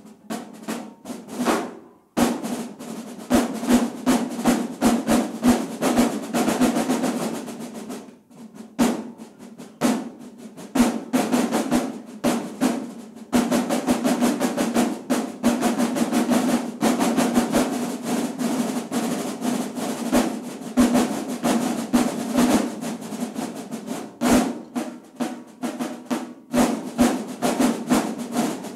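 Marching band drumline of snare drums, tenor drums and bass drums playing a fast, dense cadence with snare rolls, broken by a few brief pauses.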